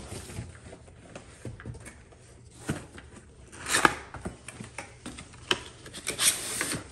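Cardboard packaging being handled: scattered light knocks and taps, a short scraping rustle near four seconds, and a longer scrape near the end as the flap of a small cardboard box is slid open.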